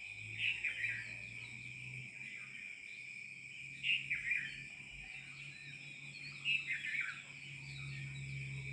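Rainforest birds and insects: a bird gives a short falling call three times, about three seconds apart, over a steady high-pitched insect drone.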